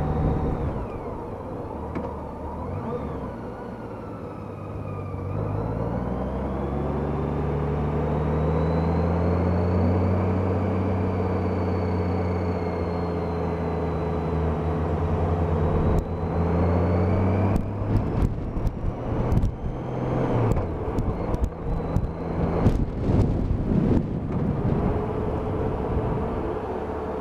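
Honda F6B's flat-six engine heard from a helmet camera, pulling away with its pitch rising over a few seconds, then holding steady while cruising. A little past halfway the pitch drops and the engine is broken up by gusts of wind on the helmet microphone.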